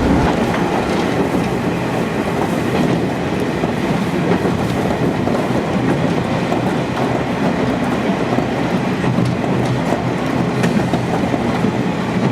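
KiHa 47 diesel railcar running along the line, a steady rumble with the wheels clicking over rail joints, heard from inside the car.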